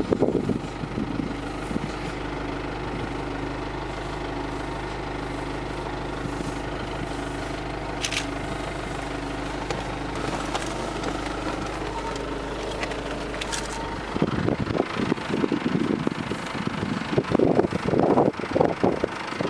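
A vehicle engine idling with a steady hum that stops about two-thirds of the way in. After that come irregular gusts of wind and handling noise on the microphone.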